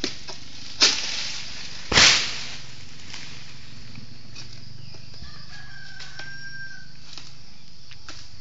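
Sudden noisy strokes as a long-poled harvesting sickle hacks at oil palm fronds, three in the first two seconds, the last the loudest. A rooster crows once, with a single held note, around the middle.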